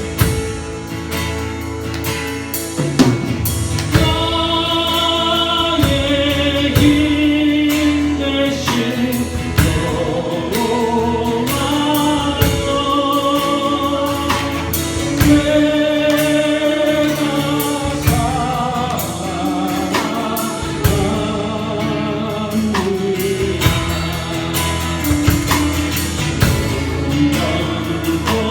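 Live worship band playing a praise song: sung vocals with vibrato over drum kit and guitar, the singing coming in about three seconds in.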